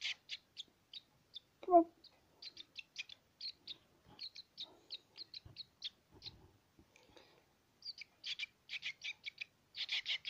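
House martin fledglings calling in rapid series of short, high chirps, several a second: begging calls while being hand-fed. The chirping thins out in the middle and picks up again near the end, with one brief, louder, lower sound about two seconds in.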